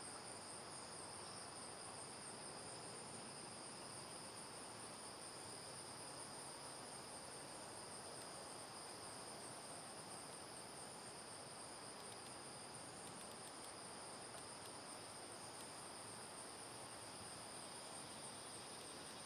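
Faint, steady insect chorus: two high, unbroken trills at different pitches over a soft background hiss.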